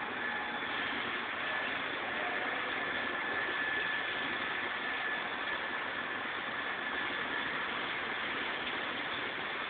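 Forklift engine running steadily as it carries a heavy machine, an even engine noise with a thin steady whine over it.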